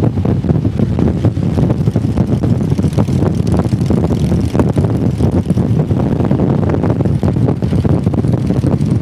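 Motorcycle engine running steadily while riding at cruising speed, with wind buffeting the microphone.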